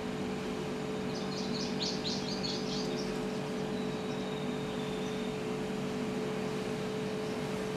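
A bird chirping a quick run of high notes for about two seconds, starting about a second in, over a steady background hum.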